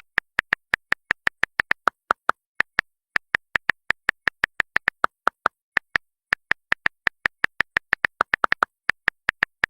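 A rapid, uneven string of short electronic blips, about five a second, each a brief beep whose pitch shifts slightly up and down, with dead silence between them, like a text-typing blip sound effect.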